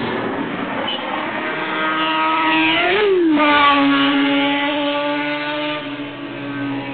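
Honda CBR 400 motorcycle exhaust revving high through a CCTV camera's narrow-band microphone. The pitch climbs until about three seconds in, drops sharply, then holds a steady note.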